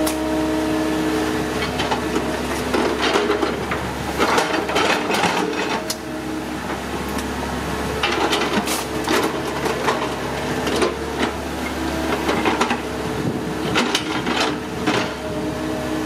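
Excavator's diesel engine and hydraulics running, with repeated knocks and clanks of metal and wood throughout.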